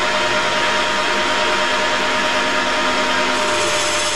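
Centre lathe running and taking a heavy, fast facing cut across an aluminium blank: a steady machine whine over the hiss of the cut. The tone shifts slightly near the end.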